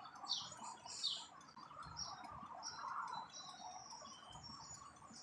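Small birds chirping: two quick high falling chirps about a second apart near the start, then thinner high whistled notes.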